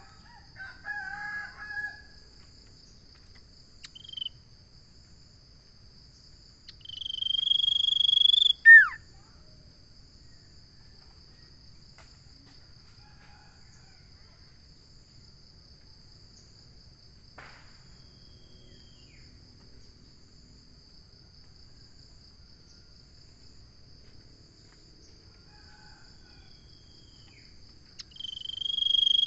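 Common iora (cipoh) calling: a long drawn-out whistle, held about two seconds and ending in a sharp falling note, with a second whistle starting near the end and a few soft chattering notes near the start. A steady high-pitched insect buzz underneath.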